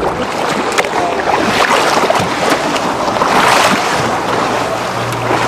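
Sea water splashing and sloshing at the surface beside a boat as a crowd of fish churns it, loudest about three and a half seconds in. A low steady hum from the boat's engine joins about four seconds in.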